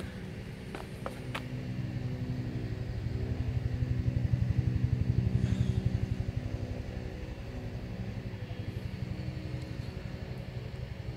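An engine running, with a low, rapidly pulsing hum that grows louder toward the middle and then eases off, as from a motor vehicle passing close by.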